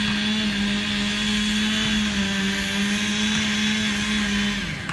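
Chainsaw running at steady high revs, one held high engine note; near the end the revs fall away and the sound cuts out.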